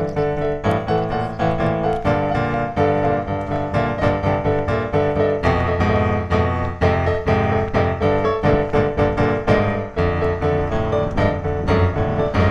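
Background piano music with many quick notes.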